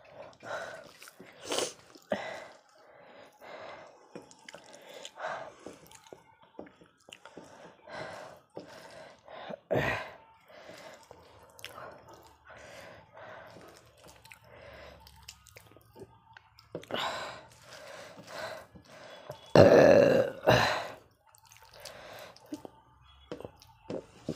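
Close-miked eating: wet chewing and mouth sounds, mixed with fingers squishing soft starchy rice in a steel plate, in many short irregular bursts. Two louder short bursts come a few seconds before the end.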